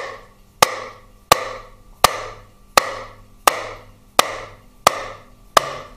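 Nylon hammer lightly tapping the end of a Harley-Davidson Twin Cam 88 transmission mainshaft: about nine evenly spaced taps, roughly three every two seconds, each with a short ring from the metal. The taps drive the transmission trap door off the case to break its gasket seal.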